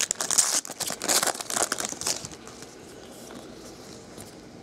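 Baseball card pack wrapper crinkling and tearing as a pack is opened, dense crackling for about two seconds, then quieter.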